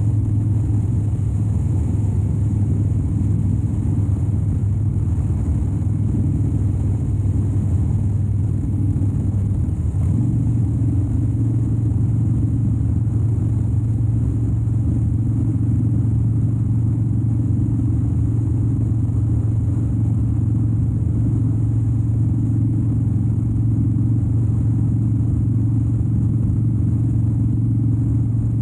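Harley-Davidson Dyna Wide Glide's 103-cubic-inch Twin Cam V-twin running at a steady cruise, a deep even note whose pitch steps up slightly about ten seconds in.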